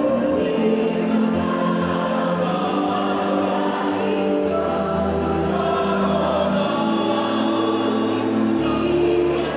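Mixed choir singing in parts over a steady low instrumental accompaniment, with long held notes.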